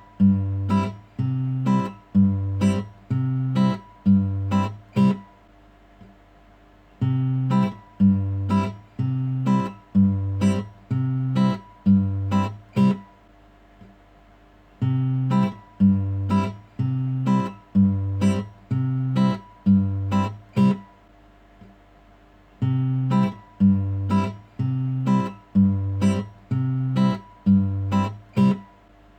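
Background music on acoustic guitar: short phrases of plucked notes, each about six seconds long and separated by brief pauses, repeating as a loop.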